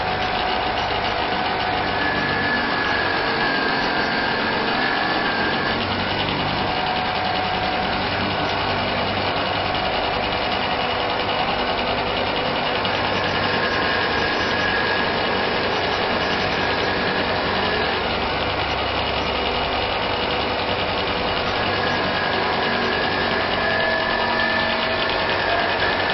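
CO2 laser engraving machine running while it engraves a glass bottle turned on a rotary attachment: a steady mechanical hum and hiss, with a high whine that comes and goes three times for a few seconds each.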